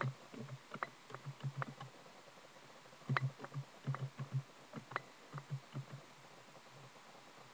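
Computer keyboard being typed on: irregular runs of key taps, each a short click with a dull low thump, with brief pauses between the runs.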